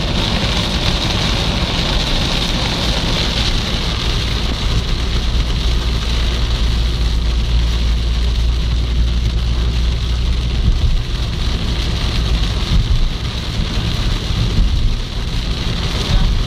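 Heavy rain falling on a moving car, heard from inside the cabin, over the car's steady low road and engine rumble.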